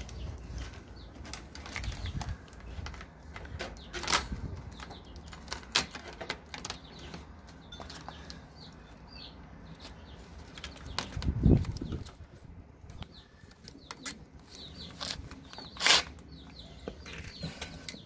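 Plastic cable ties being threaded and pulled tight, with a wire rack rattling and clicking against a plastic crate: scattered clicks and rattles, and one heavy knock about two-thirds of the way through. Faint bird chirps sound in the background.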